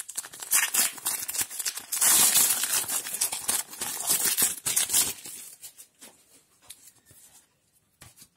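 A foil trading-card booster pack being torn open by hand, its wrapper crinkling and rustling. The tearing is loudest about two seconds in and dies down to faint rustles after about five seconds.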